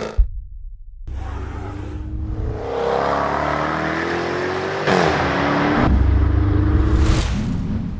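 Sports car engine sound effects: a sharp low thump, then the engine accelerating with rising pitch, dropping at a gear change about five seconds in and pulling up again, with a short whoosh near the end.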